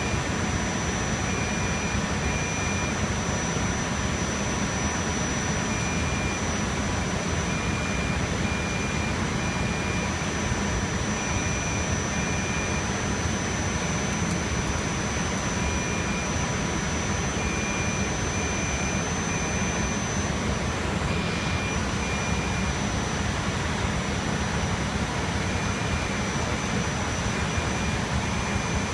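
Rack server cooling fans running steadily: an even rush of air with a thin high whine, and a fainter tone that comes and goes.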